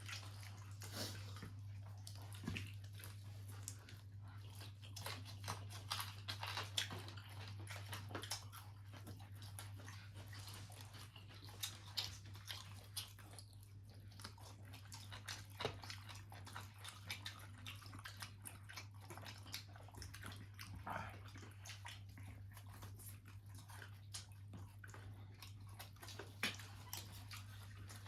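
Eating sounds: chewing and biting into fried chicken wings, with scattered small clicks and crackles, over a steady low hum.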